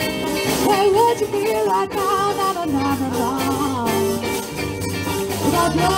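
Live band playing a song, with a woman singing lead over electric guitar, bass guitar and drum kit, heard through the stage PA.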